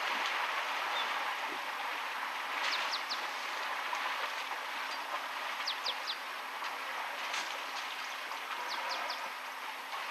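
Steady rush of shallow river water flowing and splashing around a herd of African elephants wading in it. Over it come a bird's short high chirps, in quick groups of two or three, three times.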